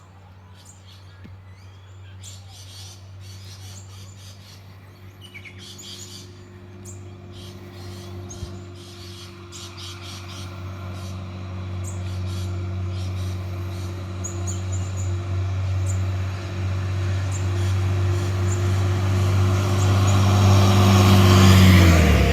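Birds chirping over a steady low hum that grows gradually louder, with a rushing noise building near the end.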